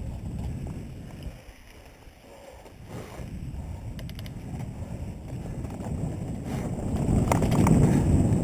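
Mountain bike rolling over a dirt singletrack, heard as a low rumble of tyres and frame, with wind buffeting the microphone. It eases off about two seconds in and grows louder near the end, with a few short rattles about four seconds in and again shortly before the end.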